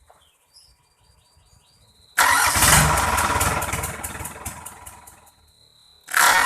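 Freshly reassembled Mitsubishi PS120 diesel engine being started: about two seconds in it bursts into loud, rapid firing that fades away over about three seconds as it fails to keep running. A second loud burst starts near the end.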